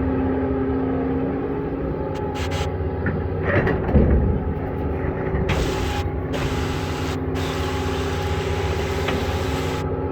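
Diesel engine of a Doosan long-reach excavator running steadily under hydraulic load while digging, with a brief louder thump about four seconds in.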